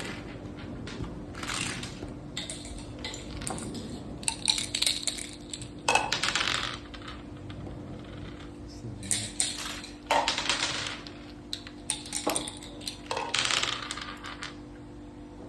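Dice and game pieces clattering on a Mak Sakah (Thai backgammon) board in a string of separate rattles and clacks, one every second or two.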